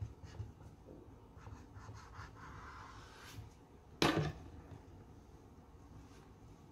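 Plastic knife scraping along a wooden cutting board as it cuts through a crepe, for about two seconds, followed by one sharp knock about four seconds in, the loudest sound.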